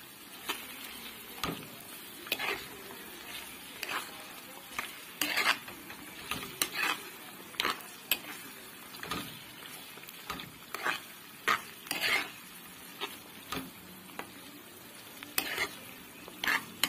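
Diced onions and red pepper paste sizzling in oil in a frying pan while a wooden spoon stirs them. Short, irregular scrapes and knocks of the spoon against the pan come every half second or so over a steady frying hiss.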